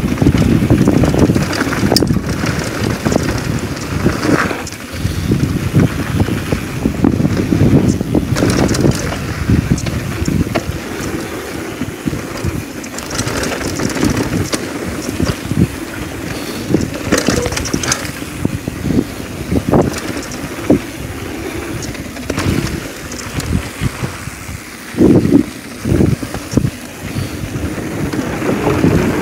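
Downhill mountain bike ridden fast down a dirt trail: wind rushing over the action camera's microphone, tyres rumbling over dirt and gravel, and the bike rattling and knocking over bumps, with a louder stretch of rumble near the end.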